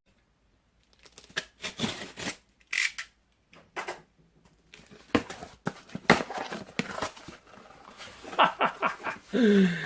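Cardboard shipping box being cut open with an X-Acto knife and unpacked: irregular scraping, rustling and tearing of tape and cardboard with sharp knocks, starting about a second in.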